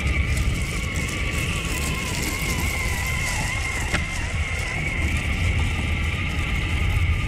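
Radio-controlled car's motor whining steadily, its pitch wavering slightly with the throttle, over a low rumble as it drives across pebbles and sea glass. A single sharp click about four seconds in.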